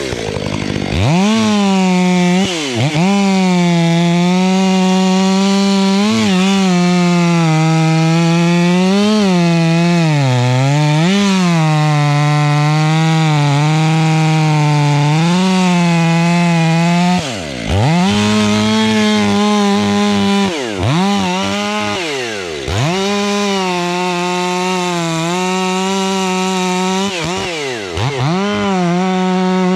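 Ported Stihl 500i fuel-injected two-stroke chainsaw running at full throttle, its pitch wavering and sagging as it cuts into wood. Several times the revs dip sharply and climb straight back up.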